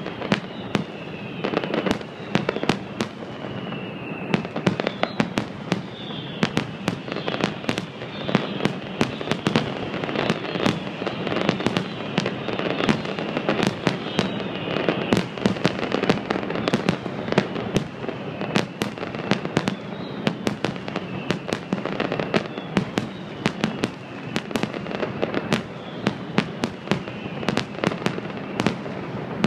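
Fireworks display: aerial shells bursting in a rapid, continuous string of sharp bangs and crackles, with the odd whistle falling in pitch.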